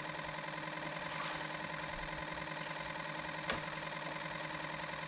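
Boat motor running at a steady, even pitch, with a single short knock about three and a half seconds in.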